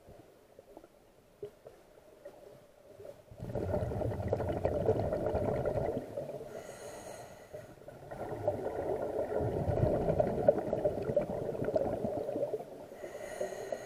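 Scuba diver breathing through an open-circuit regulator underwater: two long exhalations whose bubbles rumble and gurgle, each followed by a short, higher-pitched hiss as breath is drawn through the regulator.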